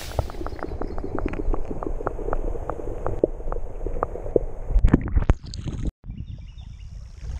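Water gurgling and sloshing around a camera held underwater in a shallow river, with a rapid, irregular run of small clicks and pops. Just before six seconds the sound cuts out, and it comes back quieter above the surface with a faint steady high whine.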